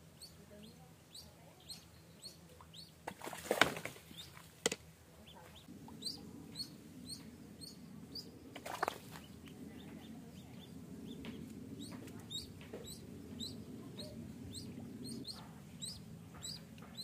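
Duckling used as live bait peeping over and over, short high cheeps about twice a second. Two louder brief noises come about three and a half and nine seconds in.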